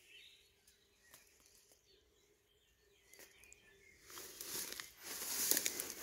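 Quiet outdoor ambience with a few faint clicks, then a rustling noise that swells from about four seconds in.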